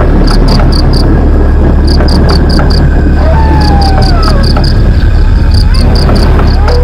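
Crickets chirping in short runs of quick pulses over a loud, steady low drone, as in a night-time horror soundscape. A few falling whistle-like tones come in about halfway through and again near the end.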